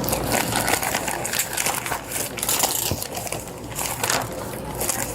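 Clothing and gear rustling and crinkling close to the microphone, with scattered clicks and knocks of handling, as a man is handcuffed and his pockets and bag are handled.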